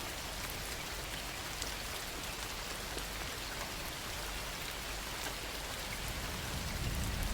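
Steady heavy rain pouring, a dense hiss with scattered pattering drops. Near the end a low rumble of thunder begins to build.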